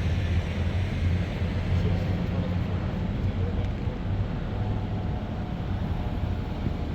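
A car on the move: a steady low rumble of engine and road noise with no sudden sounds.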